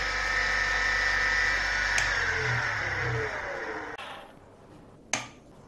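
24 V brushless geared photocopier motor running with a steady whine. A click comes about two seconds in, then the motor slows, its pitch falling, and coasts to a stop about four seconds in. A single sharp click follows near the end.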